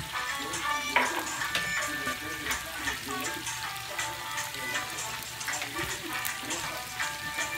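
Kangkong (water spinach) sizzling in a little broth in a wok as it comes to the boil, stirred with a wooden spatula. Upbeat reggae background music plays over it.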